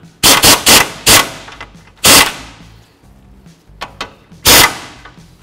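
Impact wrench hammering in short bursts, a quick cluster near the start and then single bursts a second or two apart, running a self-locking nut down onto an outer tie rod end's ball stud until it bottoms out.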